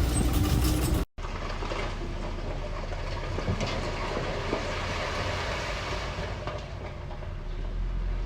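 Steady running noise of working machinery, with a low engine hum. About a second in, the sound cuts out completely for an instant and then resumes.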